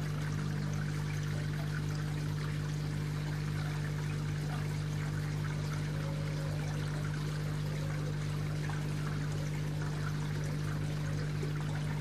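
Water splashing and trickling steadily into a garden fish pond, over a steady low hum.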